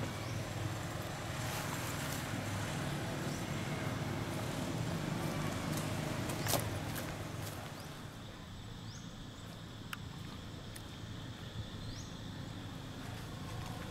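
Motorbike engine running near the stalls, a steady low hum that drops away about eight seconds in, with one sharp click shortly before. Quieter outdoor ambience follows, with a few short high chirps.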